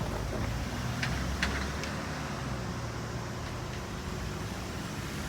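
Steady low rumble of a vehicle, with a couple of faint clicks about a second in.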